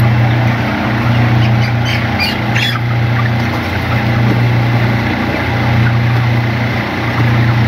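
A dense flock of broiler chickens in a shed, their calls blending into a constant noisy bed, with a few sharper high calls about two seconds in. Over it runs a loud low machine drone that swells and dips about every second and a half.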